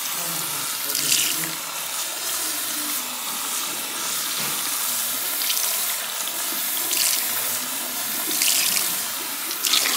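Water running from a salon wash-basin spray nozzle onto hair and splashing into the basin as the hair is rinsed by hand. A steady hiss with brief louder splashes every second or two.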